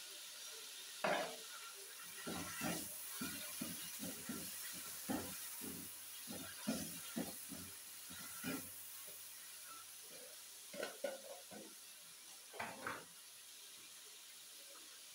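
A wooden spatula scrapes and knocks against an aluminium kadhai as mutton and spices are stirred and fried down in oil, over a faint sizzle. Repeated strokes start about a second in, pause briefly, and a few more come near the end.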